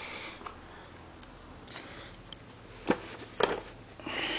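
Handling noise from unpacking an RC plane kit: two sharp knocks about three seconds in, with soft rustling before and after.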